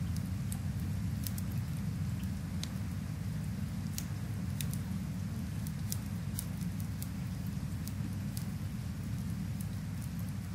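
Rain-and-fireplace ambience: a steady, low rumble of rain with sharp, irregular crackles and pops from a wood fire scattered through it.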